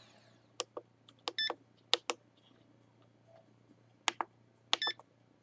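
Walkera Devo 7 radio transmitter beeping as its menu buttons are pressed: about nine short electronic key beeps, several in quick pairs, each one the radio confirming a button press.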